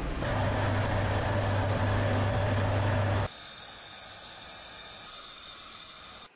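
Steady machinery and engine noise on an aircraft carrier's flight deck: a loud hiss over a deep hum, which drops suddenly about three seconds in to a quieter, higher steady hiss.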